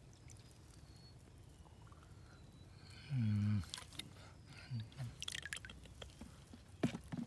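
Hands sloshing and scooping through a shallow muddy pool, with small splashes, drips and sharp wet clicks, most of them in the last two seconds. About three seconds in, a short low vocal sound with a falling pitch is the loudest thing heard.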